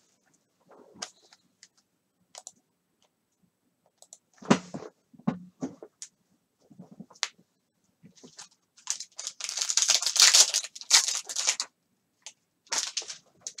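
Foil wrapper of a Panini Mosaic basketball card pack crinkling as it is torn open, with scattered clicks and taps of packs and cards being handled. The crinkling is densest and loudest about two-thirds of the way through.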